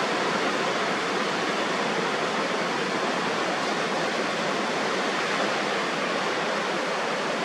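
Surf breaking on an offshore reef, heard as a steady, even wash of sea noise with no single wave crash standing out.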